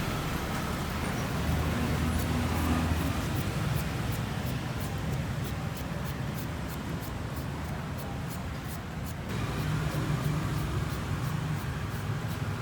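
Road traffic: vehicle engines rumbling past, swelling twice, once a couple of seconds in and again near the end, over a steady street din with faint clicks.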